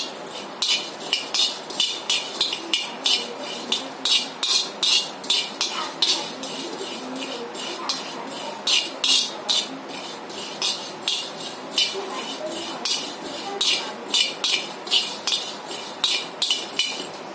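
A steel spoon scrapes and stirs whole coriander seeds, fennel, cumin and black peppercorns across a dry tawa, dry-roasting them for kadhai masala. It goes scrape after scrape, about two or three a second, with a few short lulls.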